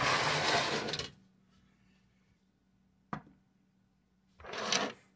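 3D-printed plastic ruler parts handled and slid on a workbench: a scraping rustle about a second long, a single click about three seconds in, and a shorter scrape near the end.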